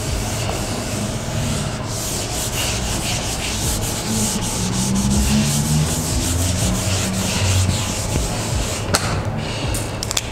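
Whiteboard eraser rubbing marker ink off a whiteboard in rapid back-and-forth strokes, with a couple of sharp clicks near the end.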